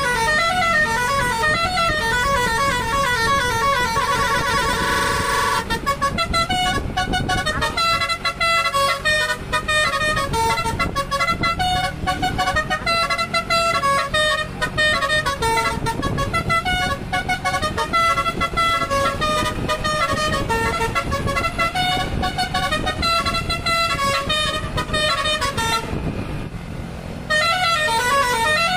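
Basuri V3 multi-tone 'telolet' bus horn playing its tunes, sped up to 1.3 times. It opens with a fast warbling trill for the first five or six seconds, then steps through a quick melody of short notes, with a brief pause near the end before the warble returns.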